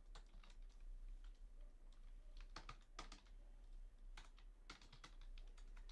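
Faint computer keyboard typing: irregular keystroke clicks as a line of code is typed.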